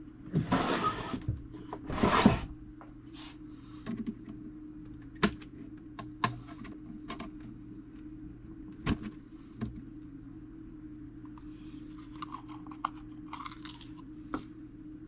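Handling of a fusee clock movement during reassembly: two brief scraping, rustling bursts near the start, then scattered sharp clicks and taps of small parts and tools, over a steady low hum.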